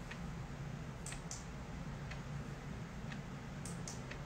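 A few faint, irregular clicks over a steady low hum.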